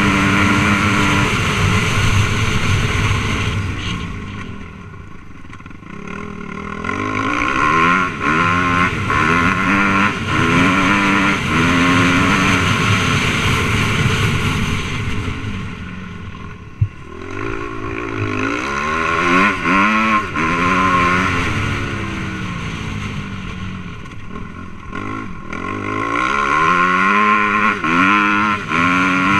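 Suzuki RM-Z250 four-stroke single-cylinder dirt bike engine under way, its pitch repeatedly climbing and dropping with the throttle and gear changes. It backs off to a lower note three times, and there is a single sharp knock about seventeen seconds in.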